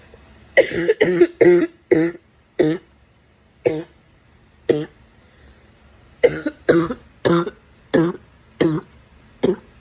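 A girl coughing hard in two fits of repeated coughs, about seven in the first and six in the second, with a pause of about a second and a half between them.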